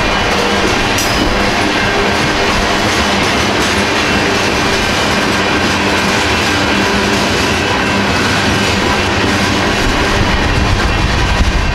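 Loaded freight cars of a BNSF manifest train, covered hoppers then tank cars, rolling steadily past over a grade crossing. Their wheels clack over the rail joints and crossing.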